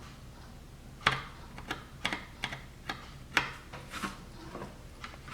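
Irregular light clicks and taps of a ruler and a plastic blast gate half being handled while measuring, about a dozen in a few seconds.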